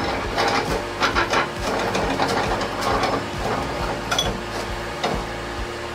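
Homemade steel vise worked by hand: the handwheel turns the lead screw and the sliding jaw moves, with irregular metal-on-metal scraping and clicking.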